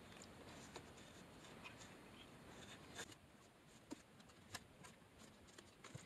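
Near silence with faint rubbing and a few small, sharp clicks of hands working at a manual shifter and its metal mounting plate; the clearest clicks come about three, four and four and a half seconds in.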